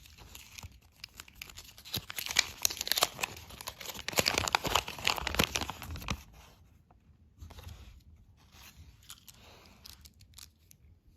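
Crinkling and tearing of plastic candy packaging, a dense crackle loudest from about two to six seconds in, then fainter scattered crackles.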